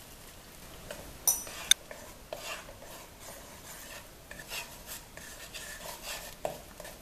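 Wooden spatula stirring and scraping beaten eggs around a nonstick wok in melted butter, with a light sizzle, in repeated strokes. Two sharp knocks about a second and a half in.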